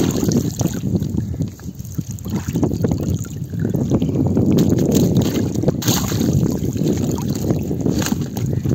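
Wind buffeting the microphone as a steady, uneven low rumble, with a few sharp clicks, about six and eight seconds in.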